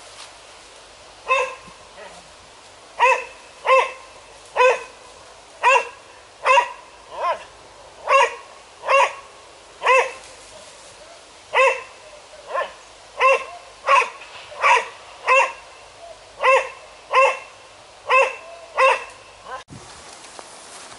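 A liver-and-white spaniel barking repeatedly with its head raised toward a tree, about twenty sharp barks at roughly one a second. The barking stops abruptly near the end.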